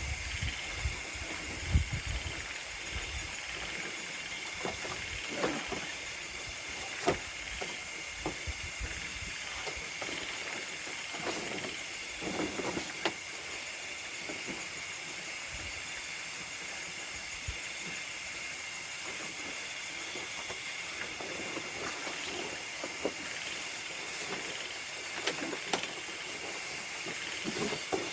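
Steady chorus of nocturnal rice-field insects, an even high-pitched drone. Scattered light knocks and rustles sound over it, with a few low thuds near the start.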